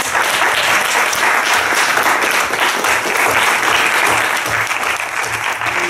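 Seated audience of a few dozen people applauding steadily.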